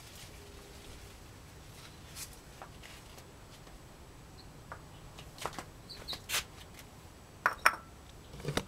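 Quiet outdoor background with scattered soft clicks and rustles and a couple of short high chirps about six seconds in; a pair of sharp crackles about seven and a half seconds in is the loudest sound.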